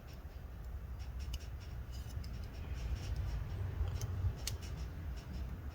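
Light clicks and scratchy ticks of small plastic laptop-fan parts being handled and pressed together by hand, over a low steady rumble.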